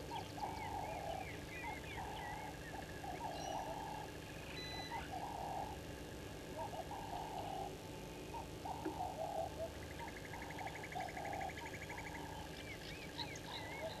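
Wild birds calling in the bush: harsh, grating calls repeated about once a second are the loudest sound, over higher, thinner chirps. A rapid, even trill runs for about two seconds near the end.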